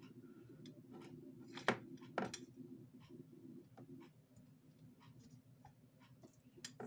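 Soldering iron tip scraping and ticking against the solder joints on a battery pack's lead wires as they are desoldered, with two sharper clicks about two seconds in. A steady low hum runs underneath.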